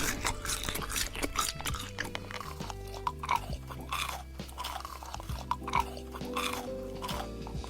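Crunchy chewing and biting close to the microphone, an irregular run of crisp crunches, over background music with held notes.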